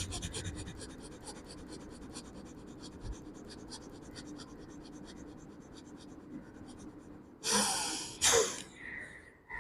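A person doing a rapid breathing exercise: a quick, even train of short, forceful breaths out, about five a second. Near the end come two longer, louder breaths in and out.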